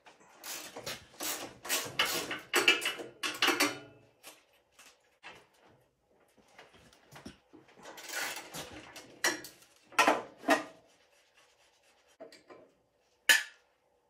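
Tools and metal parts being handled while the stock muffler is unbolted from a Predator 212cc engine: a quick run of scraping, clicking strokes over the first few seconds, more scraping and knocks later, and one sharp metallic click near the end.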